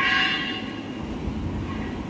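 Sheet-metal side door of a tissue paper slitting and rewinding machine being pulled open, with a short metallic ring that fades within about a second. A steady low machine hum runs underneath.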